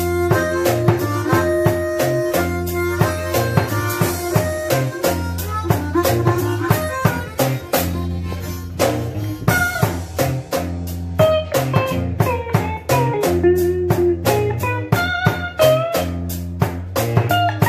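Live electric blues: a harmonica played into a vocal microphone takes the lead with bent notes over a steady drum kit beat and electric guitar, and the guitar comes more to the fore near the end.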